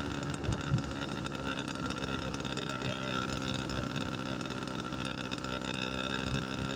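Motorbike engine running steadily under way, with two short knocks a little under a second in.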